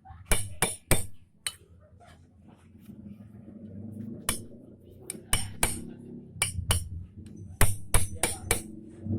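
Hammer tapping a dust seal home into a motorcycle's rear-wheel sprocket carrier hub: about a dozen sharp knocks in irregular groups of two to four, with pauses between groups.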